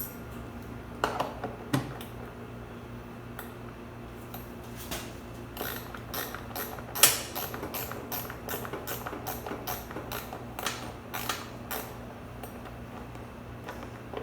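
Hand work refitting an ATV's plastic battery cover and its fastener. There are a few sharp knocks about a second in, then from about five seconds on a long run of light clicks and ticks.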